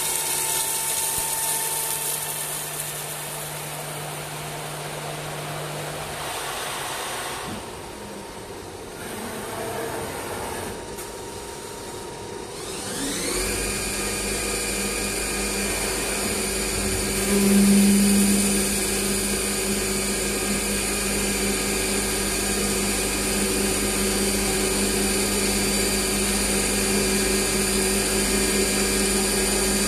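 CNC wood turning center running with a steady motor whine. It quietens for several seconds, then spins back up with a rising whine about thirteen seconds in and runs on steadily, with a brief louder patch a few seconds after.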